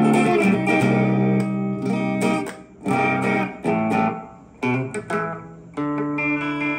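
Electric guitar played through a Zoom G5n multi-effects processor on a clean amp tone with chorus, the delay block just switched off: a run of chords and picked notes struck every second or so, each left to ring and fade.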